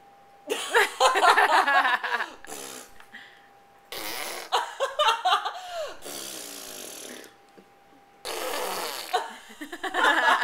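A baby blowing raspberries, buzzing her lips with her voice behind it: three wet, fart-like bursts about two seconds each, with short pauses between.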